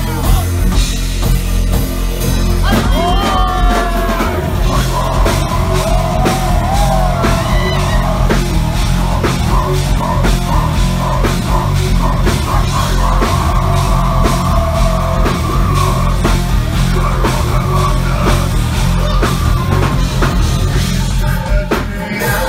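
A live heavy metal band playing loud, with a pounding drum beat and heavy bass. A few gliding high tones come in about three seconds in.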